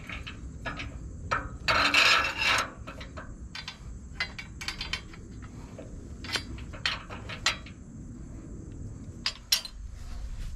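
Steel anti-sway bars and tractor three-point hitch hardware clinking and knocking as they are handled and fitted to the lower links, with a louder scraping rattle about two seconds in.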